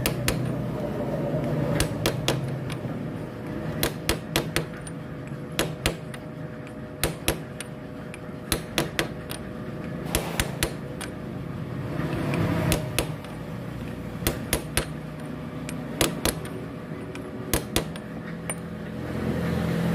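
Hammer blows on a steel sleeve driving a drive sprocket onto a small engine's sprocket shaft: sharp metal-on-metal strikes, often in quick pairs or clusters, irregularly spaced.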